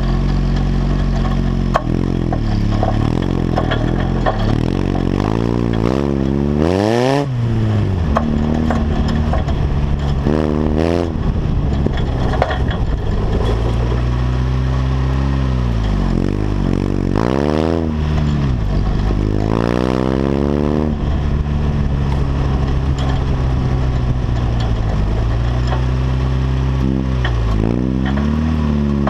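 Engine of a tube-frame off-road buggy running under load on a bumpy dirt trail. Its revs climb sharply and drop back several times. Short knocks and rattles from the chassis run through it.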